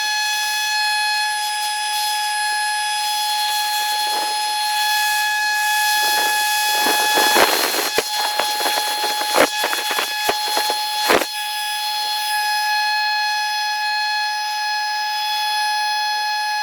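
A motor running with a steady high-pitched whine, with a string of sharp knocks and clatter about four to eleven seconds in.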